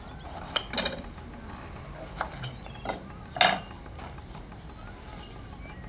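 Paring knife cutting the ends off fresh porcini mushrooms, the blade knocking on a cutting board about six times; the loudest knocks come about a second in and about three and a half seconds in.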